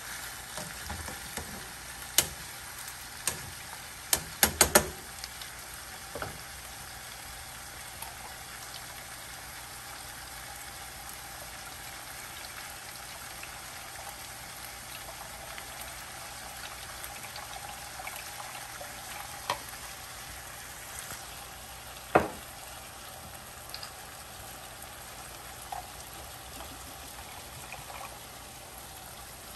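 Chicken pieces frying in oil in a nonstick pan, a steady sizzle. Metal tongs clack sharply against the pan several times in the first five seconds, and a few single knocks follow later.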